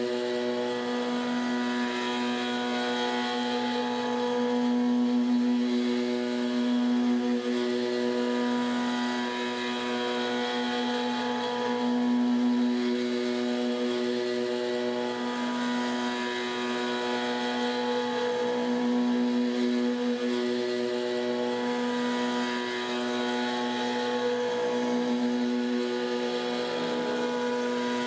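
CNC gantry mill high-speed milling 6061 aluminum with a 1/2-inch two-flute carbide end mill at 8000 RPM: a steady pitched cutting tone with overtones over a noisy hiss, swelling and easing every few seconds.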